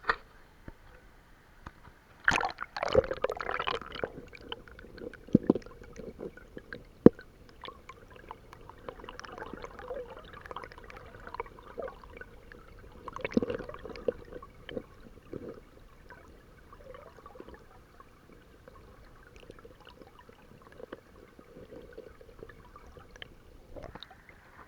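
Muffled underwater gurgling and bubbling picked up by an action camera submerged in a stream, with scattered sharp knocks and clicks. A louder stretch of bubbling comes about two seconds in, and single sharp knocks come at about five and seven seconds.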